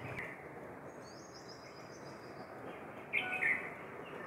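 Birds calling in the trees: a quick run of high, thin falling notes about a second in, then a short, louder two-note call just after three seconds, over faint steady background noise.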